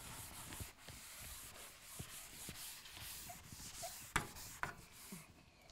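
Chalkboard eraser rubbing across a blackboard in faint, steady strokes as the board is wiped clean, with a couple of short knocks about four seconds in.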